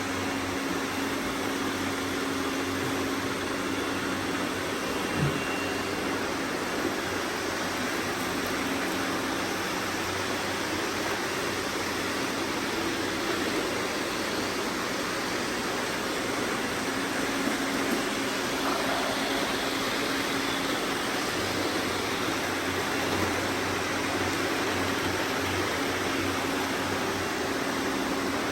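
Robot vacuum cleaners running, a steady whirring hiss with a low hum underneath, and a brief knock about five seconds in.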